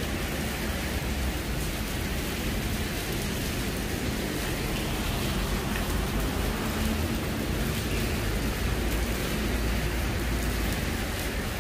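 Heavy rain pouring down, a steady even hiss with a low rumble underneath.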